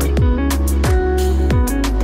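Electronic background music with a steady kick-drum beat, about three beats every two seconds, over held synth chords.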